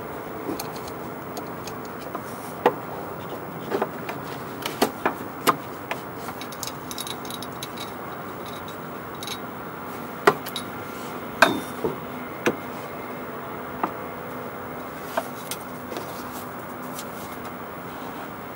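Scattered clicks and knocks as a hand and tool work at the screws of the plastic front grill from underneath, about a dozen sharp taps with the loudest ones past the middle, over a steady background hum.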